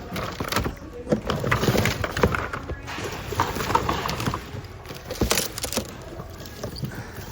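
Hands rummaging through a bin of mixed secondhand goods, items knocking and clattering against each other in irregular bursts.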